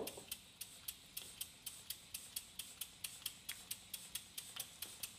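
PM Research model steam engine running on steam, giving a faint, fast, even ticking of about five beats a second. Its remade gaskets and repacked glands are still leaking a little and need tightening.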